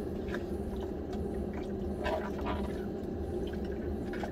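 Water running from a camper van's pull-down kitchen tap onto dishes being washed in the sink, with a steady low hum underneath and a few light clinks of the dishes.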